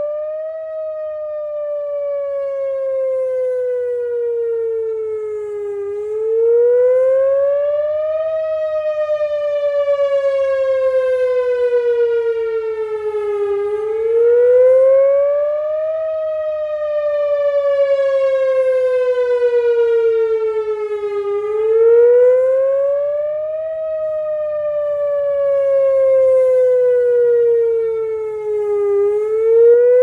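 Whelen Vortex R4 rotating electronic tornado siren sounding its wail tone. The pitch rises over about two seconds and falls over about five, four times over, and the sound swells and fades as the horn turns.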